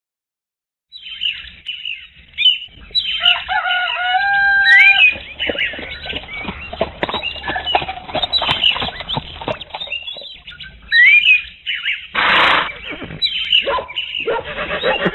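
Dawn-chorus stable soundtrack from a Hornby TTS vent van sound decoder: birds chirping and twittering, starting about a second in, with a longer many-toned call about four seconds in that fits a cockerel crowing. About twelve seconds in there is a short loud rush of noise.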